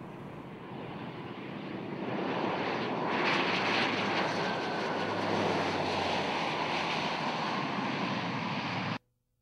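Twin turboprop engines of a Dornier 328 airliner at high power as it speeds down the runway past the listener: a rushing engine noise that swells about two seconds in and carries a faint, slowly falling whine. The sound cuts off abruptly near the end.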